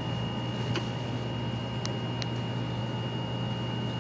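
Steady low hum with a thin, steady high whine over it, and three short faint clicks in the first half; no music playing.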